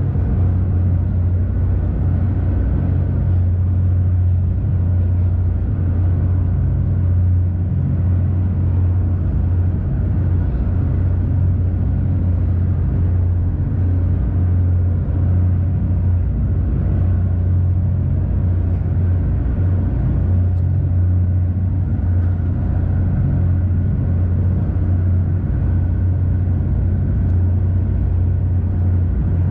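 Small ferry boat's engine running steadily under way: a deep, even drone.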